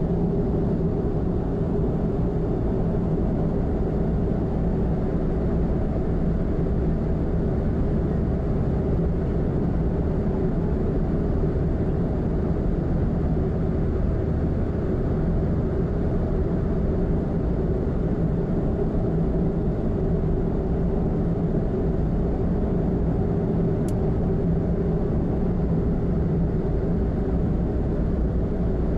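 Steady road noise of a car cruising on an expressway, heard from inside the cabin: tyre rumble and engine drone with a constant low hum. A single faint tick near the end.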